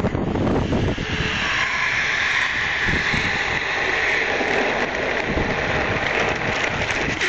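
Fire hose recharging after the hose clamp is released: a steady hiss of water and air rushing through the line sets in about a second in and holds.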